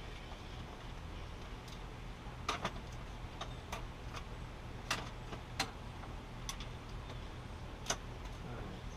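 Scattered sharp clicks and clinks of hand tools, about eight over several seconds at uneven spacing, over a steady low hum.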